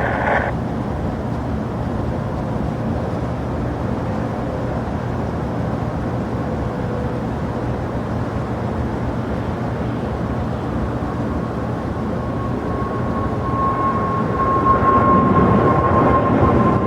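Jet airliner engine noise at an airport: a steady rumble, with a steady whine coming in about two-thirds of the way through and the noise growing louder over the last few seconds as an aircraft draws nearer.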